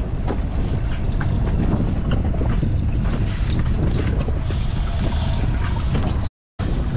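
Steady wind noise buffeting the microphone on an open boat at sea, heaviest in the low end, with a few faint ticks; the sound drops out completely for a split second near the end.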